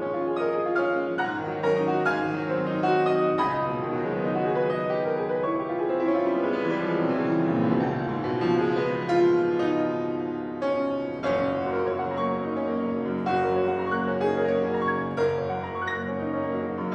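Solo piano playing classical music: a continuous passage of struck notes and chords with no pauses.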